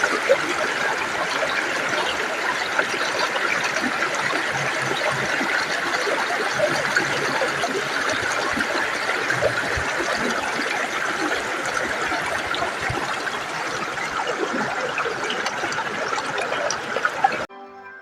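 Water of a mountain waterfall and its stream rushing and splashing steadily. It cuts off suddenly near the end.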